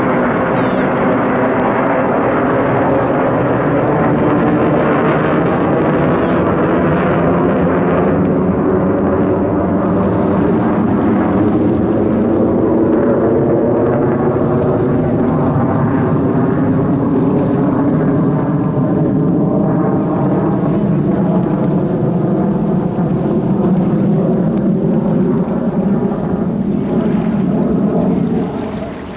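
Military aircraft engines flying overhead: a loud, steady engine roar that fades near the end.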